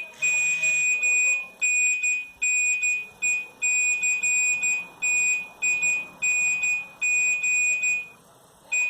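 Nokia 1110 monophonic ringtone: a single high-pitched beep tone repeated in a rhythmic on-off pattern, pausing for about a second near the end before starting again.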